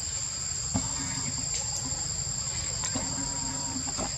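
Steady high-pitched drone of forest insects, with a sharp knock a little under a second in and a few fainter knocks later.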